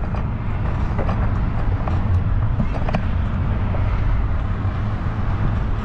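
Steady, low wind noise buffeting the microphone of a moving bicycle, with a few faint clicks.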